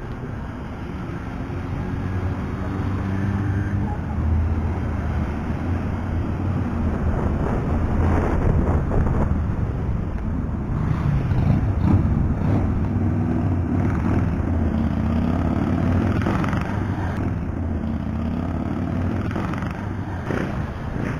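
Street traffic with trams running past on street track: a steady low rumble of motors and wheels, with a few short knocks.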